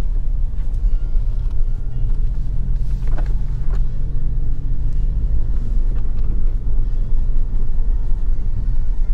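Ford Focus ST driving, its engine and tyre noise rumbling steadily as heard from inside the cabin, with a few light knocks or rattles about three seconds in.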